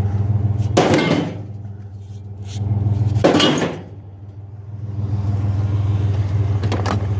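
Truck engine running steadily, with two brief rushing noises about one and three seconds in.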